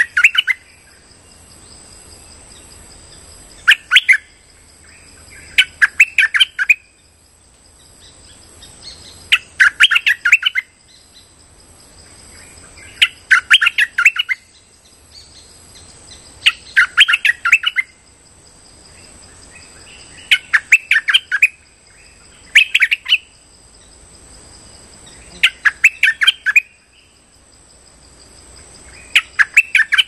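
A caged decoy bulbul (merbah) singing its lure call: short bursts of quick, bright chattering notes repeated every three to four seconds.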